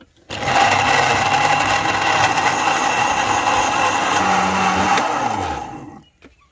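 Electric blender with a glass jar running, blending a liquid melon milkshake. It starts about a third of a second in, runs steadily for about five seconds, then is switched off and winds down with a falling hum near the end.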